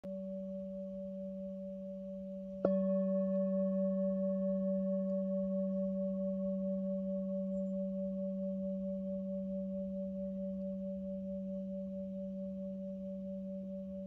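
Hand-held metal singing bowl already ringing, then struck once with a wooden mallet about two and a half seconds in. It rings on as a deep hum with higher overtones, pulsing gently and fading slowly.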